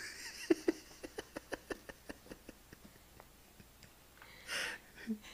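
A baby's mouth smacking and clicking, a run of soft clicks about three a second that slows and fades over a few seconds, followed near the end by a short breath.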